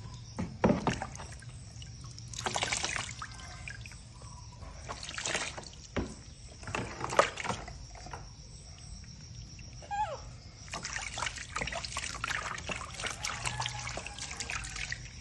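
Water splashing and trickling in a plastic tub as hands scoop water over a wet baby monkey and rub it, in short irregular splashes.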